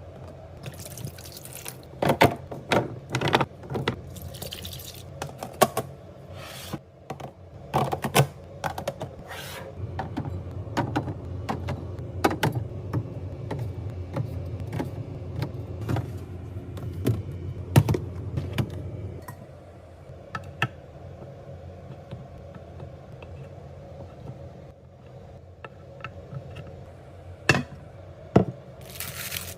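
Fridge restocking and organizing sounds: a string of sharp clicks and knocks as containers, lids and packaging are handled and set down, with a steadier noisy stretch in the middle.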